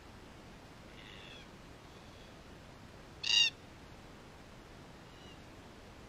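Red-tailed black cockatoo calls: a faint, slightly falling call about a second in, one loud, short call a little past halfway, and another faint call near the end.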